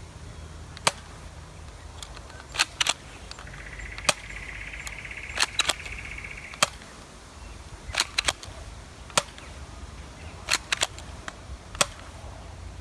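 Mauser C96 replica toy gun being cocked and fired with rubber bullets from its magazine: a series of sharp clicks and snaps, some in quick groups of two or three.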